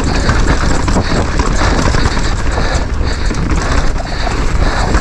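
Downhill mountain bike descending rough, rooty and rocky trail, heard from a rider-mounted camera: wind buffets the microphone, tyres roll over dirt and rock, and the bike rattles with a constant stream of small knocks.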